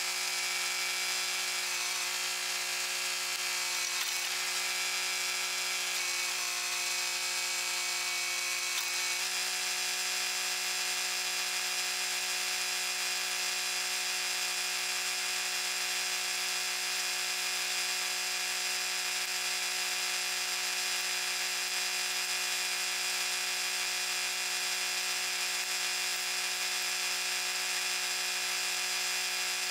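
Kubota backhoe tractor's diesel engine running steadily, an even drone with a whine over it. It wavers a little for the first nine seconds or so, then settles into a constant tone.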